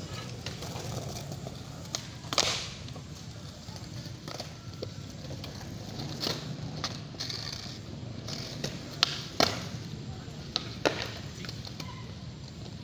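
Skateboards on concrete: sharp wooden clacks of decks being popped and landing, several scattered through, the loudest about two and a half seconds in, over a steady low rumble.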